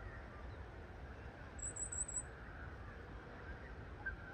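Distant twin-engine jet airliner passing overhead, a steady low rumble. A brief run of four quick high chirps sounds about two seconds in.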